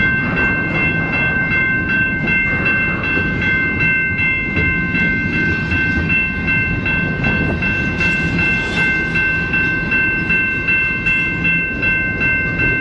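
Freight train of intermodal well cars rolling past at slow speed. The wheels rumble and clack in a steady rhythm, with a steady high-pitched ringing tone held over it throughout.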